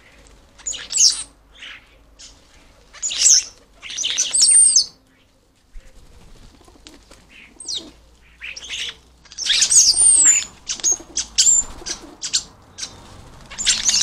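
European starlings squabbling at a feeder: clusters of scratchy squawking calls mixed with short high whistles, coming in bouts with pauses between, and wings flapping as they fight near the end.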